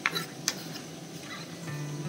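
Background music with steady held notes; near the start two sharp taps about half a second apart, as chopped tomato pieces are swept off a wooden cutting board onto a ceramic plate.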